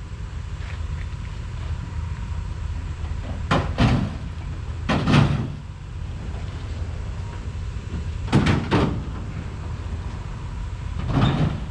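Scrap being handled and unloaded at the yard: about six heavy clanks and thumps, some in quick pairs, over a steady low rumble.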